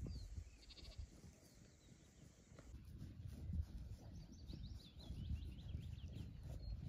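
Sheep and lambs grazing in a pasture, with one short bleat about a second in. A run of quick high bird chirps comes near the end, over a faint low rumble.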